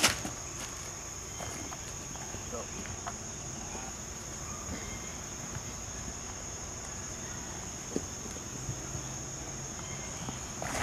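Steady high-pitched insect chorus from the surrounding woods, with a sharp click right at the start and a lighter tap late on.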